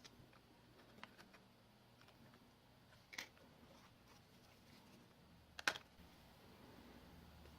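Faint, scattered clicks and taps of small hand tools and parts on a smartphone's frame during disassembly. A louder click comes about three seconds in and a sharper one about two-thirds of the way through.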